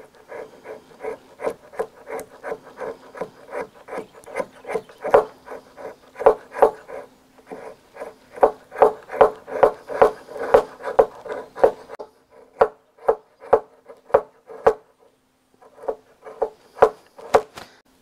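Knife blade shaving a stick of resin-rich fatwood into tinder: quick repeated scraping strokes, about two to three a second, with a couple of short pauses.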